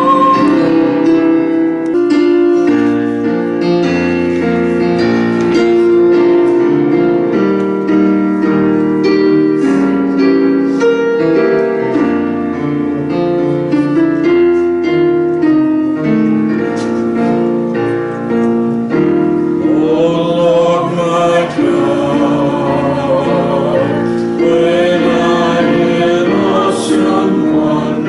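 Electronic keyboard played with a piano sound, a stretch of chords and melody with no voice; about twenty seconds in, a singer comes back in with a wavering sung melody over the piano.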